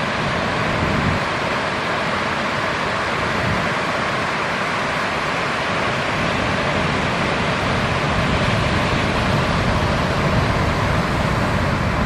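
Steady roar of breaking ocean surf with wind on the microphone, growing a little louder in the second half.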